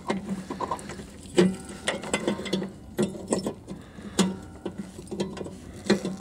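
Irregular clicks, taps and scrapes of an H4 LED bulb's metal base being worked by hand into the bulb socket of a car headlight housing.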